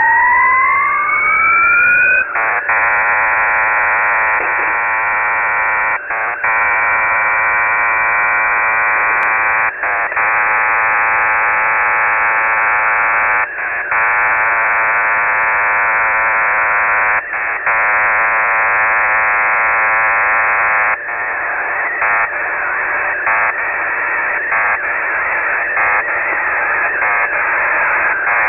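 Shortwave receiver audio of an unidentified signal on 3591.40 kHz. A frequency sweep of two tones glides upward for the first two seconds, then gives way to a dense, hissing digital data signal. The data signal has brief dropouts every few seconds and turns choppier about three-quarters of the way through.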